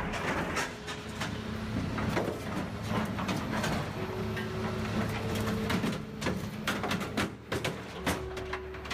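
Heavy machinery crushing a scrapped car: a steady engine drone under many sharp cracks and crunches of metal being bent and broken.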